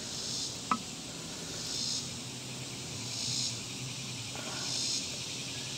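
Chorus of insects trilling steadily, swelling and fading about every second and a half, with a single light click about a second in.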